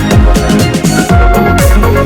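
Electronic dance music with a steady beat and deep bass drops on every beat.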